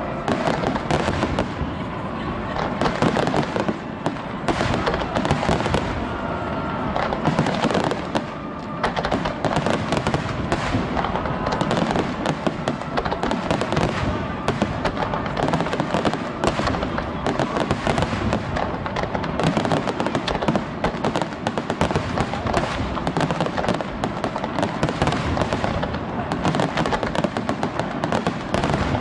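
Fireworks display: a dense, unbroken barrage of aerial shell bursts, many bangs and crackles a second.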